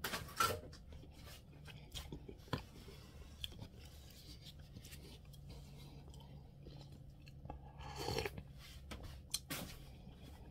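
A person eating instant noodles: slurping a noodle strand in at the start, chewing, then sipping broth from the bowl, with short slurps and mouth noises around two and a half, eight and nine and a half seconds in.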